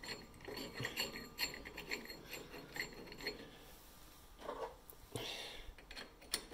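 Light metallic clinks and scraping as a steel end cap and a thin steel plate are fitted by hand onto the threaded end of an axle: a quick run of small clicks through the first three seconds or so, then a few scattered rubs and a single click near the end.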